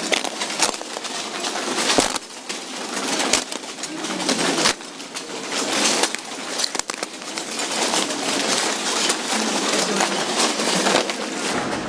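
Footsteps crunching over a floor of thin clay tiles, the shards cracking and grinding underfoot with a dense crackle and many sharp snaps.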